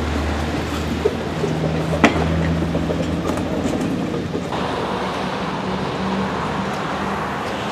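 A small yellow narrow-gauge rail trolley being pushed by hand, its wheels rumbling along the rails with one sharp clack about two seconds in. About four and a half seconds in, the sound changes to steady road traffic noise from passing cars.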